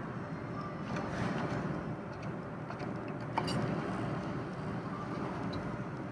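Claw machine working as its claw is moved and lowered onto a pile of plush toys, over a steady background hum, with one sharp click a little over three seconds in.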